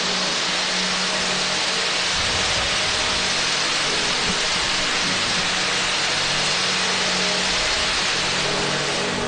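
Firework fountains on the Scoppio del Carro cart spraying sparks, making a steady, dense hissing crackle.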